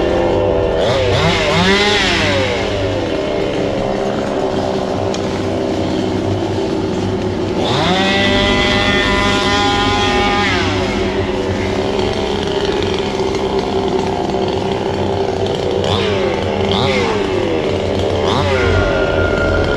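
A small engine revving up and dropping back several times over a steady running note, with one longer rev held for a few seconds in the middle.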